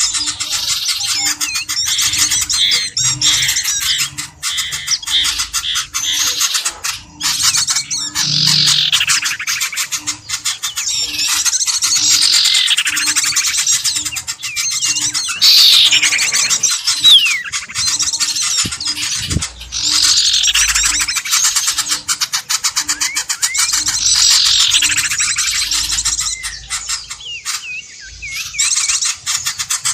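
Bird-lure recording of many birds chattering and squawking densely, with a loud, falling call repeating every three to four seconds.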